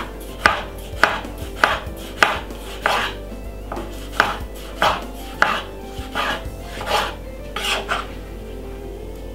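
A kitchen knife chopping a tomato on a wooden cutting board: a string of sharp knocks as the blade meets the board, about two a second and somewhat uneven.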